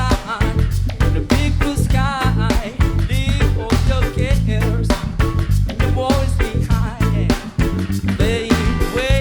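Band playing an upbeat reggae-ska song: bass, drums and guitar with a wavering melody line over them.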